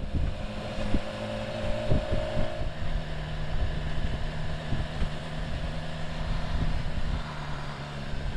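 Motorcycle engine running at a steady pace under wind noise on the microphone, with a few sharp knocks about one and two seconds in.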